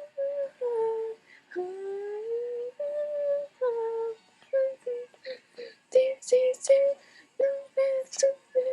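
A single high voice singing a melody with no accompaniment: long held notes that slide up and down for the first few seconds, then quick short syllables.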